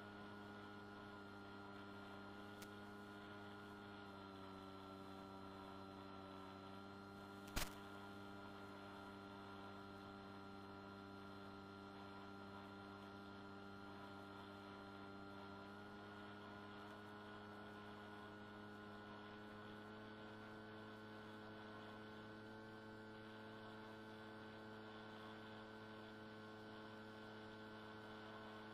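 Electric motor and propeller of a Swift II flying wing in cruise, heard through its tiny onboard electret microphone as a faint steady hum with several overtones; the pitch rises slightly in the second half as motor current goes up. A single sharp click about seven and a half seconds in.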